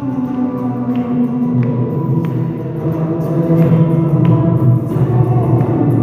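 Hindu aarti devotional song: voices singing over musical accompaniment, with a few scattered hand claps.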